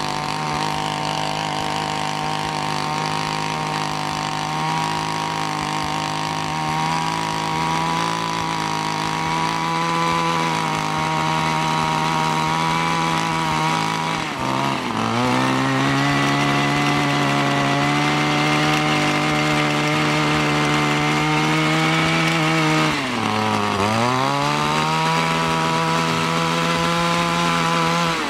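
Small gasoline engine of a mini cultivator running at high speed while its tines churn up sod. Twice, about halfway through and again near the end, the engine speed sags and then picks back up.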